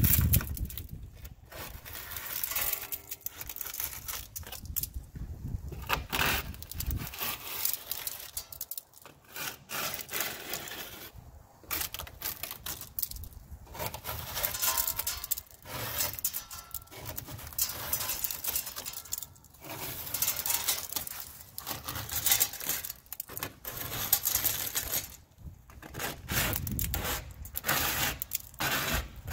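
Zebra mussels being scraped off a pontoon boat's tube with a plastic scraper, in repeated strokes with short pauses between them, the hard shells breaking loose against the hull.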